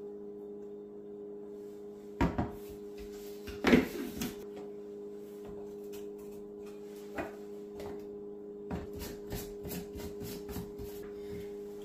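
Plastic handling sounds as a scoop of powder goes into a plastic shaker cup: a few sharp knocks, the loudest about four seconds in, then a run of small clicks near the end as the shaker's plastic lid is screwed on. A steady low hum sits underneath.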